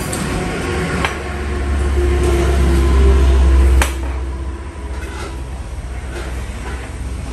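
A deep low rumble that builds for a few seconds and stops abruptly about four seconds in, with two sharp clinks of bowls and dishes being set down on a table, one about a second in and one as the rumble stops.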